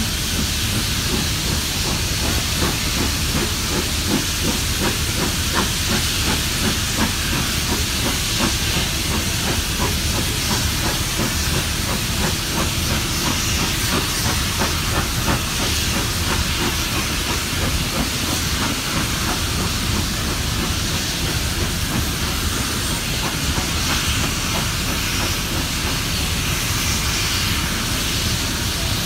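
Steam-hauled passenger train running along the line, heard from an open carriage window: a steady rushing hiss over the low rumble of the wheels on the rails.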